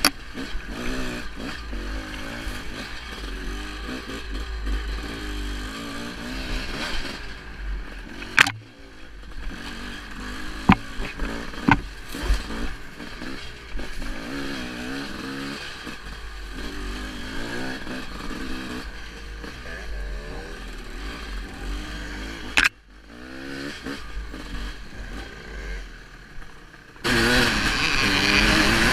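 Dirt bike engine revving up and down as the bike is ridden over rough ground, with several sharp knocks as it jolts over bumps. Near the end the sound turns suddenly louder, with rushing noise over the engine.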